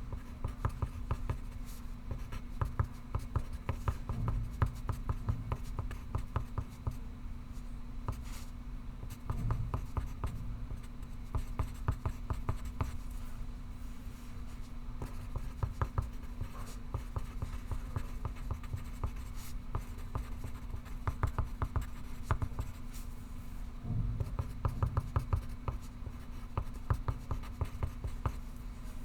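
Pencil writing on paper: a dense run of quick, scratchy strokes, with a steady low hum underneath.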